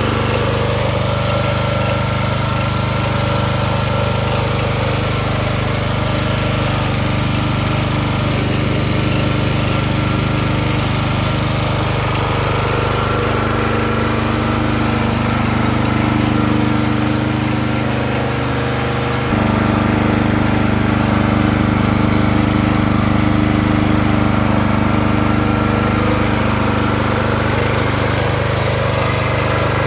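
MTD ThorX OHV single-cylinder four-stroke engine on a garden tiller, running steadily. About two-thirds of the way through its note shifts and it runs slightly louder.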